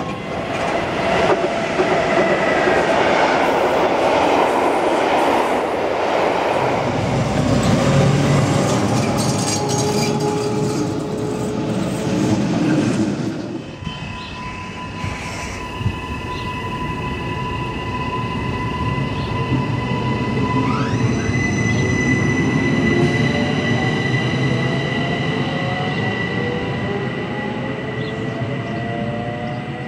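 A Zentralbahn electric train passing at speed with a dense rumble of wheels on rail. After a cut, an electric multiple unit's traction equipment whines in several steady tones; one jumps up in pitch about two-thirds of the way through, and lower tones then rise steadily as the train gathers speed.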